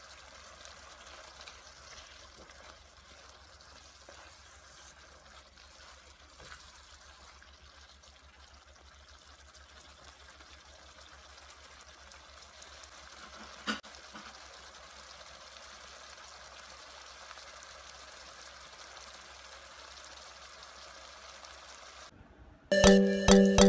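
Sambal sauce simmering gently in a wok, a faint steady bubbling hiss, with a single short click about two-thirds of the way through. Near the end, loud chiming music starts abruptly.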